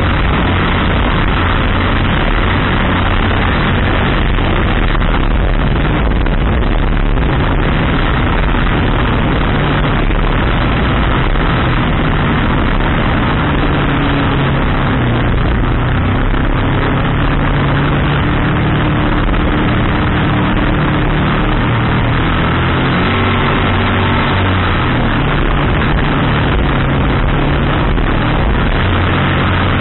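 Racing jet boat's engine running hard and steady under way, heard from inside the open cockpit.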